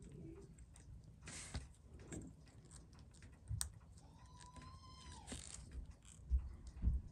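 Scattered small clicks and handling noises on a watchmaker's bench, with two short hissing bursts, a brief high, held tone about four seconds in, and two low thumps near the end.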